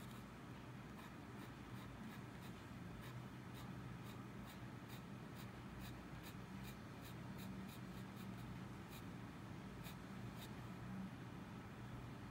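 Extra-fine nib of a Lamy Safari fountain pen scratching on Moleskine sketchbook paper in quick, short hatching strokes, about two to three a second, faint.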